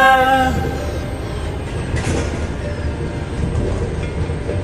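A held sung note with vibrato fades out about half a second in. The pop karaoke backing track then plays on alone as an instrumental break, with no singing.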